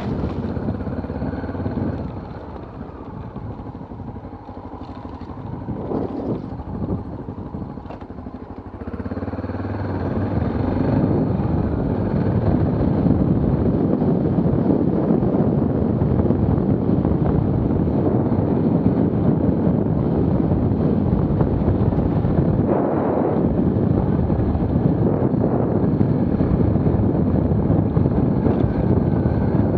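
Dual-sport motorcycle engine running, heard from the rider's helmet camera. It runs at low revs for the first several seconds while the bike pushes through brush, then grows louder and steady from about ten seconds in as the bike picks up speed along the track.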